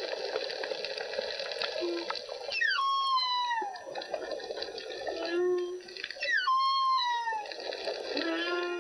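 Humpback whale song: a short low note followed by a high cry that sweeps steeply down in pitch, twice, about three and a half seconds apart, over a steady watery rush.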